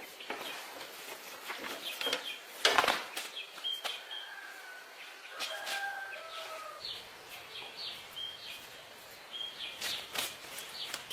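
Scattered sharp clicks and knocks, the loudest about three seconds in, with short high chirps repeating throughout, like small birds.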